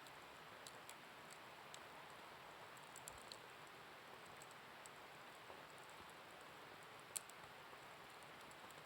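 Bonfire crackling faintly: scattered sharp little pops over a low steady hiss, with one louder pop about seven seconds in.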